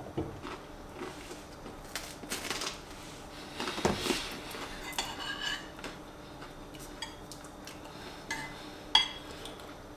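A metal spoon clinking and scraping against a ceramic stew bowl, in scattered short clinks, a few with a brief high ring.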